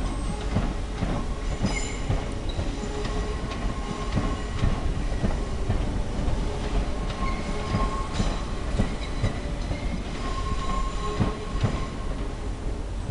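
Electric passenger train pulling away over the station pointwork: a steady rumble with irregular clicking of wheels over rail joints and points, and brief high wheel squeals every few seconds.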